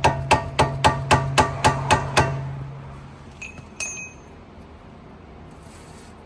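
A hammer striking metal on a corroded coilover's adjuster collar, a rapid even run of about nine ringing blows at roughly four a second that stops about two seconds in. A second or so later come two lighter metallic clinks.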